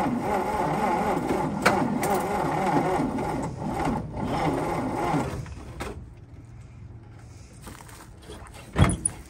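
1954 Dodge truck's starter motor cranking the engine over without it catching, the starter stuck engaged; the cranking stops abruptly about five seconds in, when the power is cut. A single sharp clunk near the end.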